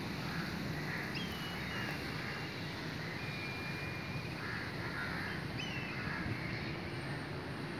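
Outdoor ambience of birds calling over a steady low rumble: a few short whistles that drop in pitch, one held whistle about three seconds in, and some harsher calls.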